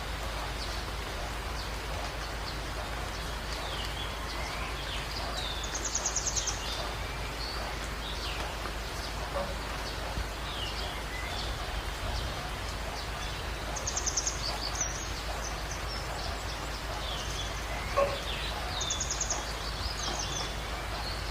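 Wild birds calling over a steady background hiss: scattered short chirps and downward-sliding whistles, with three brief rapid high trills spread through. A single short knock stands out near the end.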